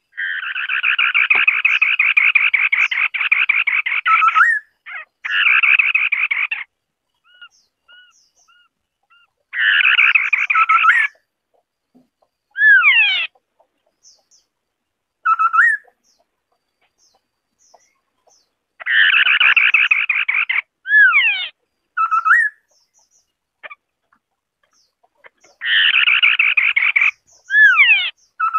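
White-browed scimitar-babbler singing: long rapid trilled phrases of a few seconds each, alternating with short paired whistled notes and quick curving sweeps, in bouts with short pauses between.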